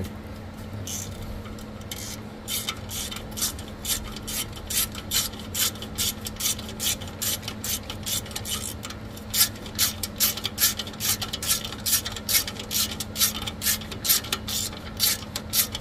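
Quarter-inch-drive ratchet clicking in short runs, a few clicks a second, as it tightens the transmission oil pan bolts, over a steady low hum.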